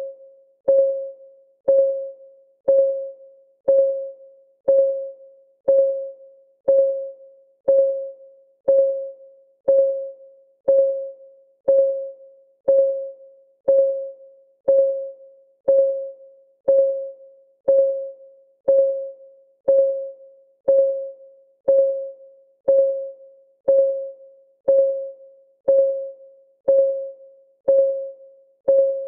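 Clock-ticking sound from a countdown timer: an even tick about once a second, each one a short pitched tock that rings briefly and fades before the next.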